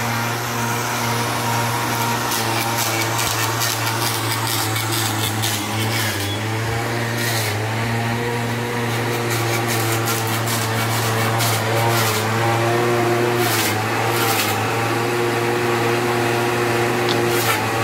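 A machine's motor running steadily with a low, even hum, and a few short knocks during it.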